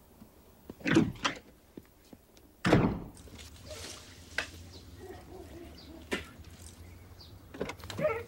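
A door slamming shut with a heavy thud about two and a half seconds in, preceded by two sharper knocks. A low steady hum and a few light clicks follow.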